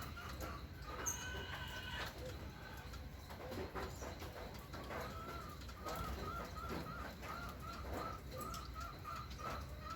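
Birds calling: a longer call with several tones about a second in, then one bird repeating a short note in a quick, even series of about three notes a second through the second half, over a low steady rumble.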